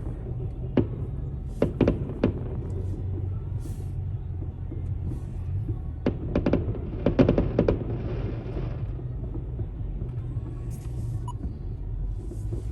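Steady road and engine rumble heard from inside a moving car, with sharp firework bangs and crackles outside at intervals, thickest in a cluster around the middle.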